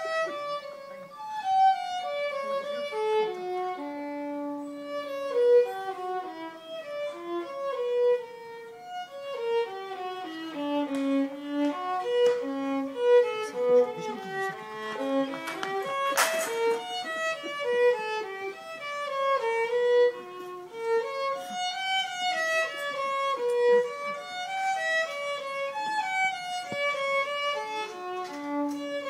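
Solo violin playing a fast Irish jig: one quick melodic line of short, separate notes running without a break.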